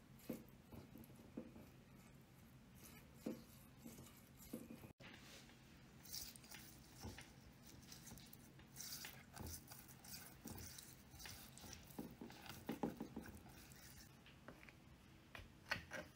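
Faint soft dabbing and smearing of a silicone pastry brush spreading oil and spices over raw chicken breasts in a glass baking dish, with light taps against the glass, over a faint steady low hum.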